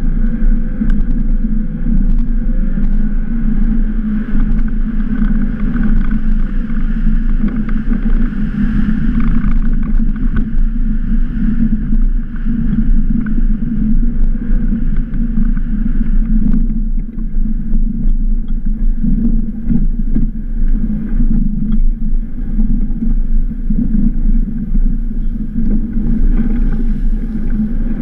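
Audi A1 engine running steadily as the car drives over packed snow: a steady low drone.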